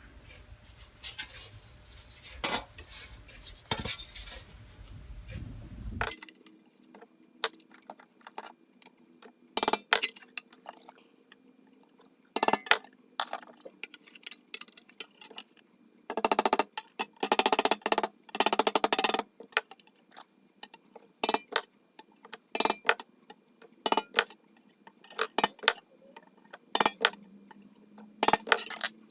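Hammer tapping on the thin sheet steel of a small metal toolbox to work out its dents: sharp metallic clinks, a few at first, then a quicker series with fast flurries of strikes about two-thirds of the way through.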